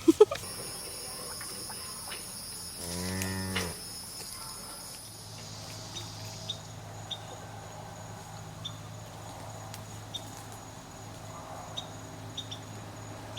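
A Highland cow moos once: a low call about a second long, roughly three seconds in.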